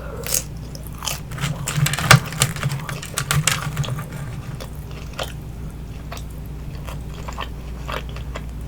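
Close-miked chewing of a crispy baked vegetable spring roll: the wrapper crunches and crackles in a dense run of sharp crackles for the first few seconds, then the chewing goes on with only scattered ticks.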